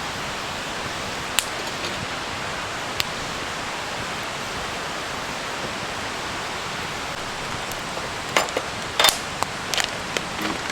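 Wood campfire crackling, with a few sharp pops of burning wood over a steady rushing hiss.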